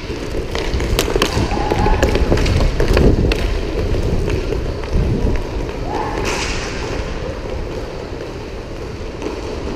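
Inline skate wheels rolling on a plastic sport-court floor, a steady rumble under the whole stretch, with several sharp clacks of hockey sticks hitting the puck and the floor in the first few seconds.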